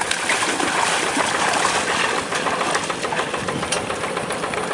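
Kubota RD85 single-cylinder diesel of a hand tractor running at idle, with water sloshing around it.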